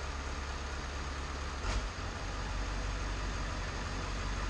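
Ford 7.3 L Powerstroke turbo-diesel V8 idling steadily. About two seconds in there is a brief click or knock, and the engine's low hum shifts slightly afterwards.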